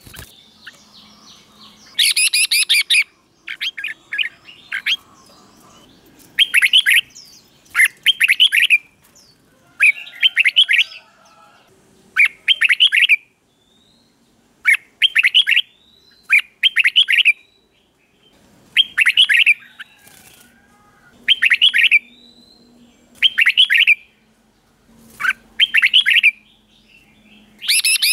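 Red-whiskered bulbul singing loud, short, whistled phrases, about one a second, often in quick pairs: the doubled "เบิ้ล" song style.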